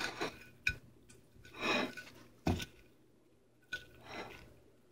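A person chewing a mouthful of deep-fried whole eel: soft, irregular chewing and mouth sounds with a few faint clicks.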